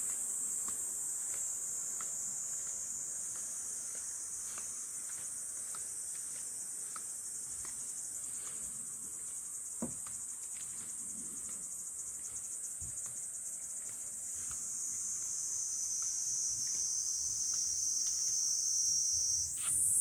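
Steady, high-pitched drone of a summer insect chorus. About two-thirds of the way through it drops slightly in pitch and grows louder, then jumps back up near the end.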